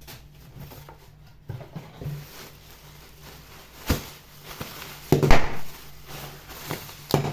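Scattered knocks and rubbing of items and packaging being handled, with the loudest cluster about five seconds in, over a low steady hum.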